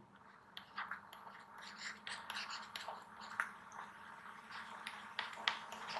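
Faint scratching and light taps of a stylus writing on a pen tablet, scattered irregularly, over a faint steady hum.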